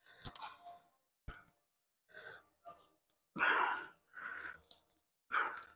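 A man breathing hard and exhaling forcefully through a set of dumbbell presses, about one breath a second, the loudest a little past the middle: breathing under the effort of the lift. A short knock comes a little after one second in.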